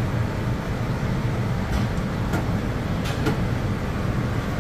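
A döner knife slicing chicken off a vertical rotisserie spit, with a few light clicks and scrapes near the middle, over a steady low hum.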